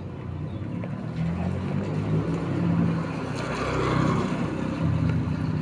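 Motor vehicle engine running with a low, steady hum, swelling into a louder rush of traffic noise about three to four seconds in as a vehicle passes close.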